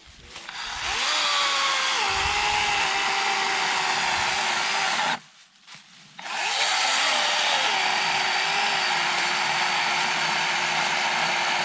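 Kobalt 24-volt cordless electric chainsaw cutting a fallen log. The motor's whine climbs as the trigger is pulled, then settles lower as the chain bites into the wood. It stops about five seconds in and starts again a second later, rising and then settling into the cut once more.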